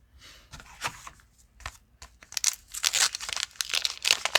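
Crinkling and rustling of a wax-paper baseball card pack wrapper and cards being handled. The crackling starts sparse and gets dense and louder about halfway through.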